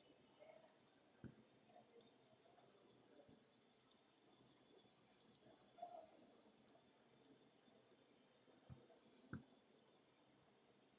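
Near silence with about ten faint, irregular clicks from a person working at a computer, over low room hiss and a faint steady high whine.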